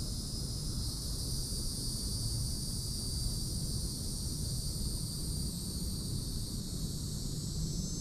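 A steady, high-pitched chorus of insects, with a low rumble underneath.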